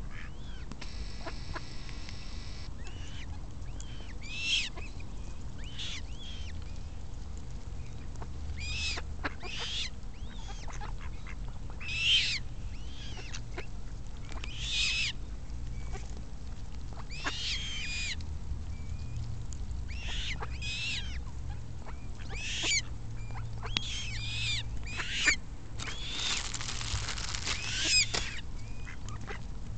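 Eurasian coots calling: short, sharp, high-pitched calls repeated at irregular intervals every second or two, over a steady low rumble.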